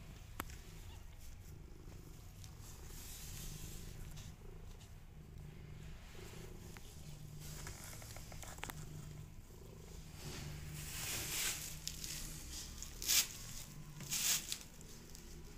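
Calico mother cat purring steadily as she is stroked: a low, evenly pulsing rumble. A few brief rustles come in near the end.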